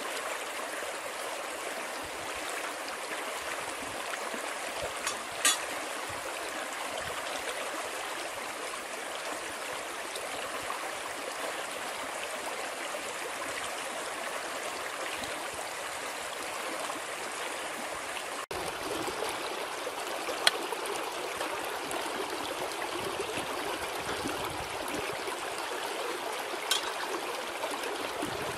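Steady rushing of a flowing stream, with three sharp clicks or knocks spread through it.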